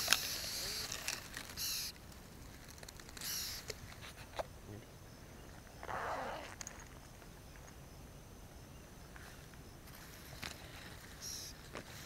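Tall grass rustling in short bursts as the stalks are brushed and pushed aside, with a few faint clicks of handling.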